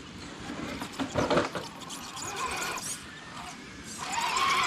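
Electric motor and gears of an RC rock crawler whining as it crawls, with irregular knocks and scrapes on rock about a second in.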